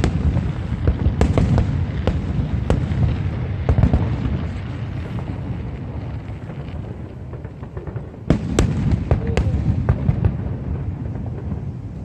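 Aerial fireworks display: a run of sharp bangs and crackles from bursting shells over a continuous low rumble, easing off in the middle before a close cluster of loud bangs about eight seconds in.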